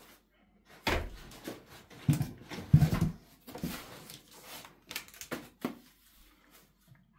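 Shrink-wrapped multipacks of canned cat food in cardboard trays being handled in a large cardboard box: cardboard scraping and rustling with a string of knocks, and a few dull thumps about two to three seconds in.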